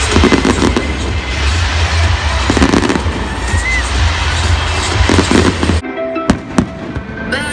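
Stadium fireworks bursting and crackling, many sharp pops over a low rumble, with music playing under them. About six seconds in it cuts abruptly to a quieter stretch with a couple of single sharp pops.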